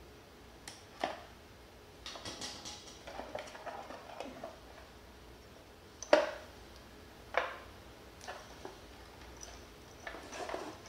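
Plastic wiring connectors and leads inside an electric scooter's battery compartment being handled and pulled apart: a series of sharp clicks and snaps, the loudest about six seconds in, with rustling of wires between them.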